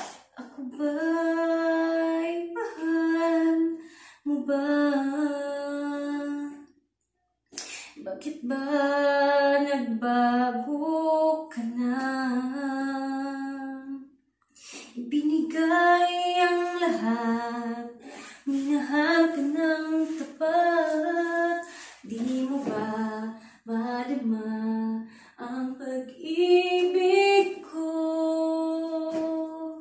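A woman singing unaccompanied in a small tiled bathroom. She sings long held notes in phrases, with short breaks for breath between them.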